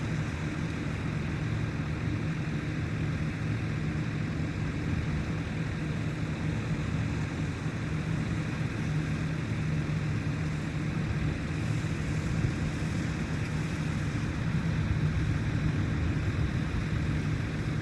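An engine running steadily, a continuous low drone with no change in pitch.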